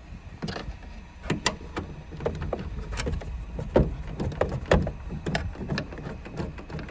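Scattered clicks and knocks, some sharp and a few louder near the middle, from hands working at the convertible roof mechanism and trim in the boot of an Opel Astra, over a low rumble.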